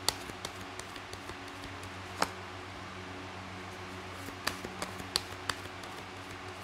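Tarot cards being handled and laid out: scattered light taps and clicks, the sharpest about two seconds in and a few more together later on, over a steady low hum.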